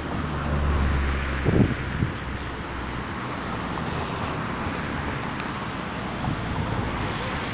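Steady outdoor rushing noise with distant road traffic; a low engine hum is heard during the first second and a half.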